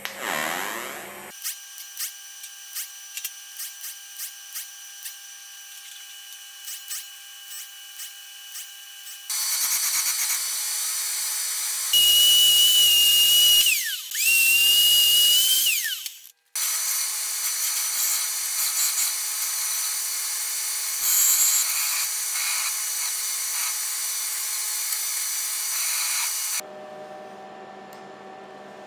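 Metalworking sounds in sequence. First a TIG welding arc: a steady tone with regular light ticks. Then, from about 9 s in, a metal-cutting bandsaw runs through steel with a whining tone that dips and recovers, stopping abruptly about 16 s in, followed by another long stretch of steady power-tool noise and a low hum near the end.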